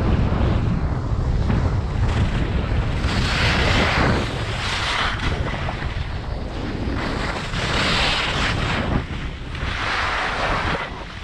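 Wind buffeting the microphone of an action camera on a fast ski descent, a steady low rumble. Over it, three swelling hisses of skis carving and scraping across packed snow on the turns.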